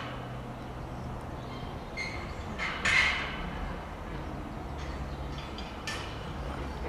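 Heavy steam locomotive, the three-cylinder 4-6-0 No. 46100 'Royal Scot', working hard at slow speed: sharp exhaust chuffs about three seconds apart, the loudest in the middle. Underneath runs the steady low drone of a diesel multiple unit's engines.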